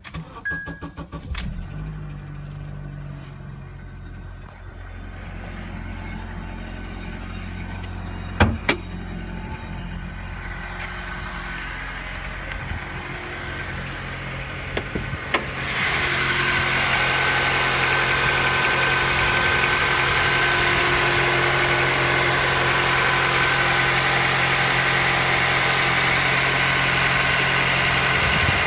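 Honda Accord 2.0 four-cylinder engine cranked and catching within the first second or two, then idling steadily; the engine is being shown for a knock. A couple of sharp clicks come about eight seconds in, and at about sixteen seconds the engine sound grows louder and hissier and stays that way.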